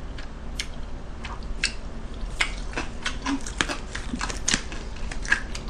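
Close-miked eating sounds of jjajang (black-bean-sauce) food: irregular wet mouth clicks, smacks and chewing, several a second, with chopsticks working against the bowl.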